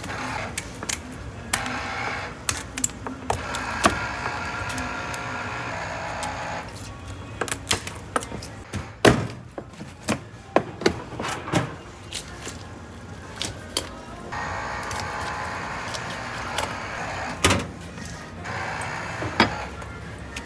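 Background music, with many sharp knocks and clicks throughout. The music drops away in the middle, where the knocks stand out, the loudest about nine seconds in.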